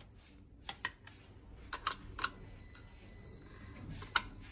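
About half a dozen sharp clicks and taps of small metal and plastic parts being handled, in small groups, the loudest about four seconds in: a compression tester's gauge and screw-in fitting being moved between spark plug holes on an engine.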